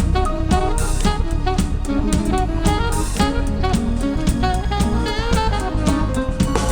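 Live band music: a jazzy groove with saxophone over drum kit and guitar.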